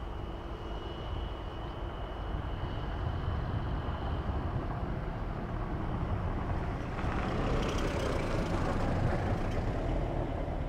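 Jet engines of an easyJet Airbus A320-family airliner running on the runway as it rolls toward the listener, a steady rumble with a thin high whine in the first half, the noise building louder about two-thirds of the way in.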